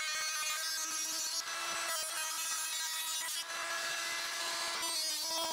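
Rotary tool with an abrasive cut-off wheel cutting thin sheet metal from a can: a steady high motor whine over a gritty grinding hiss, dipping briefly a few times as the wheel works along the cut.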